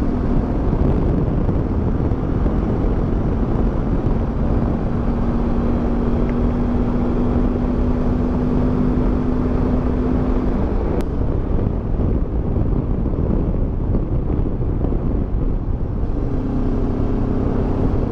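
QJMotor motorcycle engine running under way, mixed with a steady rush of wind and road noise. A steady engine note holds for several seconds in the middle, fades into the rush, and comes back near the end.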